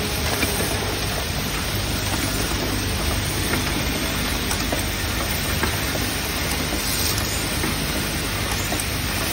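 Automatic hinge assembly machine running: a steady, dense rattle of small metal parts and mechanisms, with light clicks through it over a low hum.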